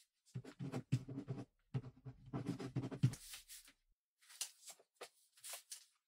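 Ballpoint pen writing: a dense run of quick scratchy strokes for about three seconds, then a pause and a few short, separate strokes.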